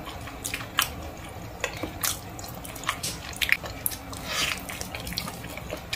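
Wet chewing of cooked goat ear and skin, with scattered short mouth clicks and smacks. One brief louder wet smacking sound about four and a half seconds in.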